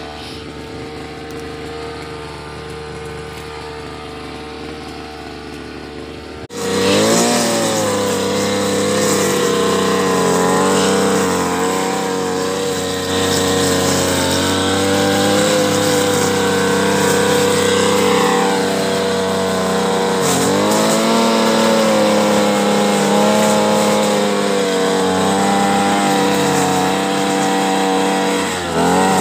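Backpack brush cutter's small petrol engine running steadily. About six seconds in it turns abruptly louder and runs at high throttle, its pitch wavering and dipping briefly a couple of times.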